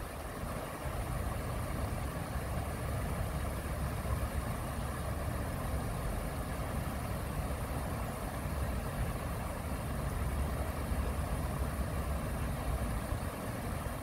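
Shallow stream water rushing steadily over a rocky weir, with a low rumble underneath.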